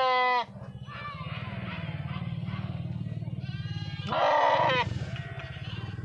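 A young animal bleating twice, a loud call at the start and another about four seconds in, each falling in pitch. A steady low drone runs underneath.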